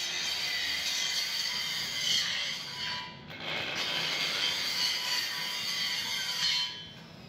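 Electric angle grinder grinding rust off a steel bar, a steady harsh grinding noise that breaks off briefly about three seconds in, resumes, and stops near the end.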